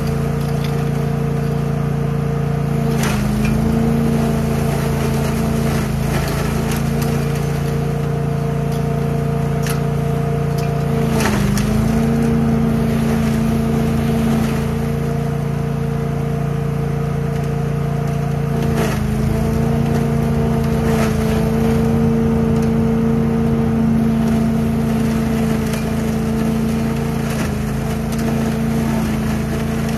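Billy Goat trailer-mounted leaf vacuum running steadily at a constant pitch, with crackles and clicks of leaves being sucked up through its intake hose. The machine's pitch sags briefly three times, about 3, 11 and 19 seconds in.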